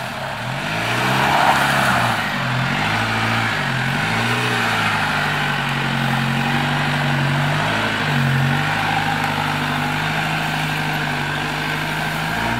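Holden Colorado ute's engine working through a slippery, rutted mud track, its note rising and falling with the throttle in repeated swells for the first several seconds, then holding a steady pitch with one brief dip.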